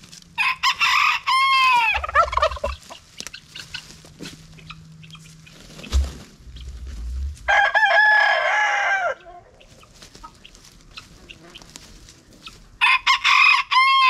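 Roosters crowing: three long crows, each about a second and a half and ending in a falling note, a few seconds apart.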